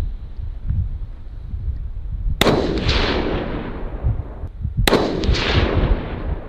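Two rifle shots about two and a half seconds apart, each a sharp crack followed by a long rolling echo, from a scoped rifle fired without its suppressor. Wind rumbles on the microphone between the shots.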